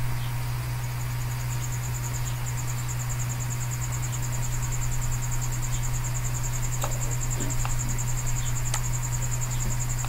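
Steady low hum of background noise. From about a second in, a high, fast, evenly pulsing trill runs over it, and a few faint clicks fall in the second half.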